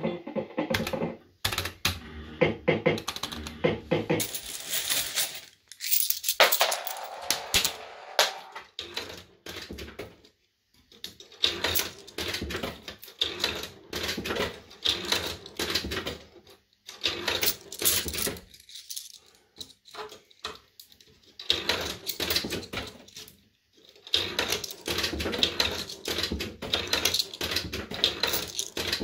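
JPM Red Hot 6 fruit machine ticking rapidly as a win counts up into its credit meter, in runs of quick clicks broken by a few short pauses.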